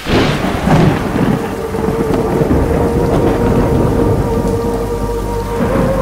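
A thunderclap breaks in suddenly and rumbles, then heavy rain falls steadily. A steady held tone sounds beneath the rain from about a second in.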